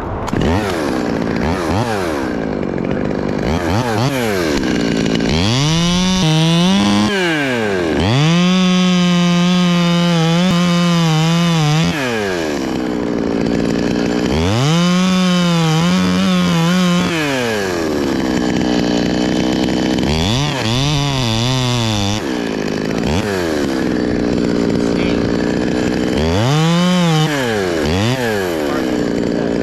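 Two-stroke chainsaw revving up to full throttle and easing back off several times, holding at full speed for a few seconds at a stretch while cutting into very hard Australian pine wood.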